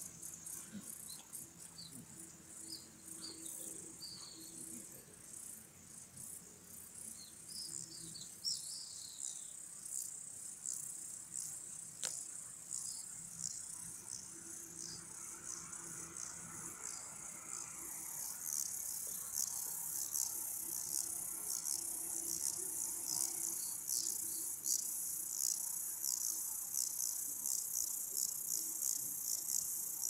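Meadow insects chirring in a dense, rapidly pulsing high-pitched buzz that grows louder a little past halfway. A few faint short high chirps sound in the first several seconds.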